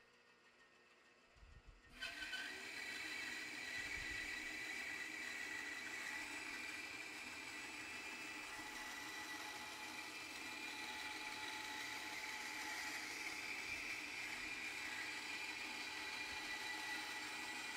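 Bandsaw switched on about two seconds in, its motor spinning up with a brief rising whine, then running steadily while a quarter-inch blade resaws a board into thin veneer against the fence.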